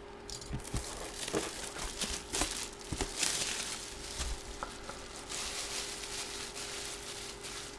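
Packaging crinkling and rustling, with scattered small clicks, as a memorabilia box is opened and its contents handled.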